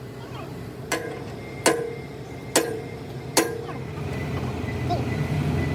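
Four sharp metal-on-metal knocks about a second apart, each leaving a brief ring. From about four seconds in, a low steady engine-like drone rises underneath.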